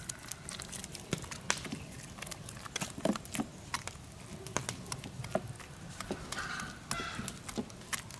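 Irregular light clicks and taps, a few a second, over a low background hum.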